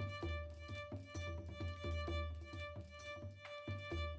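Background music: a held high note over a steady, pulsing bass beat.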